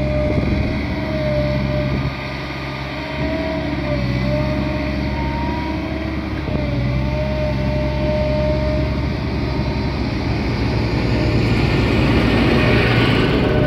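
Steady mechanical hum of a running machine, several tones wavering slightly in pitch, with a hiss that swells near the end.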